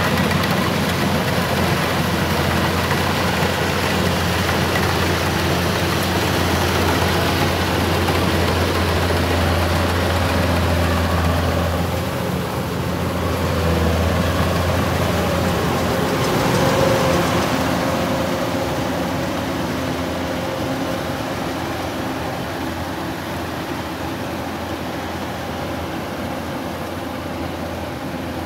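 Crawler rice combine harvester's diesel engine running steadily under load as it cuts and threshes ripe rice. The sound grows fainter over the last third as the machine moves away.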